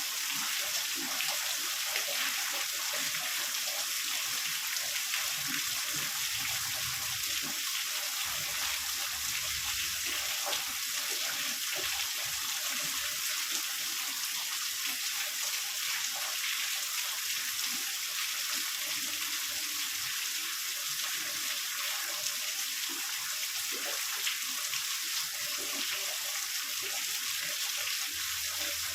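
Heavy rain falling steadily as an even, hissing wash.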